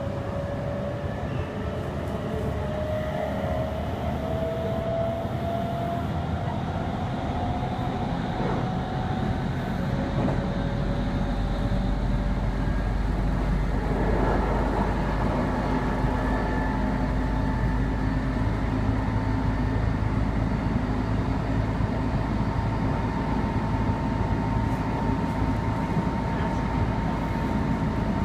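Meitetsu 3500 series electric train heard from inside the passenger car while running: traction motor whine that climbs in pitch over the first several seconds, over continuous wheel and track noise. About halfway through a deep rumble grows stronger and a steady whine holds at one pitch.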